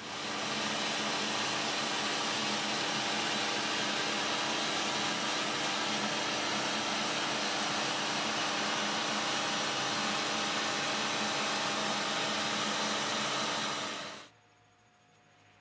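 Steady rushing noise of workshop dust extraction and power sanding on a wood lathe, with a faint steady hum under it; it stops suddenly about 14 seconds in.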